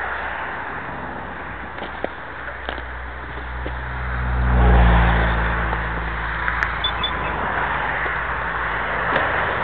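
A motor vehicle passes, its engine hum swelling to a peak about five seconds in and then fading, over a steady outdoor background hiss.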